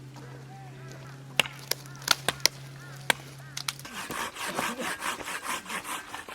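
Firewood being worked at a campsite: a few sharp wooden knocks and snaps, then, about four seconds in, a hand saw starts cutting through wood in quick, even strokes, about four a second.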